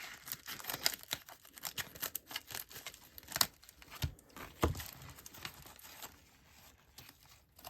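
Scissors cutting open a mail package and the packaging crinkling and tearing, with a few louder knocks about three and a half to five seconds in.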